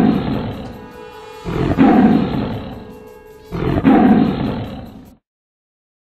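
A lion roaring three times, each roar loud at onset and then fading, the first already under way, with a faint held musical tone underneath. It cuts off suddenly about five seconds in.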